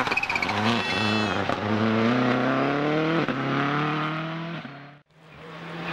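A World Rally Car's engine at full throttle, with a few quick gearshifts in the first second and a half, then a long pull through one gear with the pitch steadily rising. About five seconds in the sound cuts away, and an engine comes back holding a steady note.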